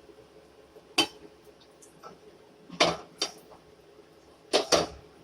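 Cooking utensils knocking and clinking against a pan and containers: a handful of short, sharp knocks, the last ones in two quick pairs.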